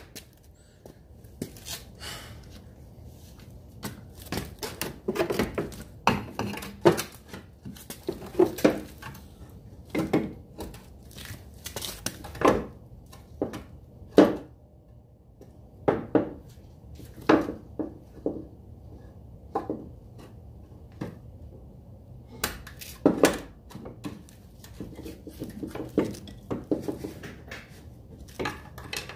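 Irregular metallic clanks, knocks and scrapes of a new front strut assembly and tools being handled and worked into place on the steering knuckle.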